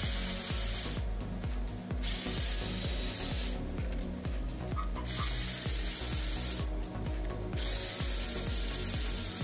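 A screwdriver works screws out of an angle grinder's metal gear housing, giving clicks and a scraping rasp in alternating stretches of about a second each. Background electronic music with a steady beat plays throughout.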